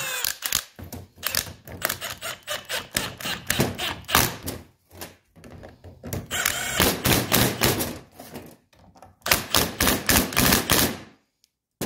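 Milwaukee M18 Fuel cordless impact gun hammering bolts tight, in three runs of rapid rattling impacts.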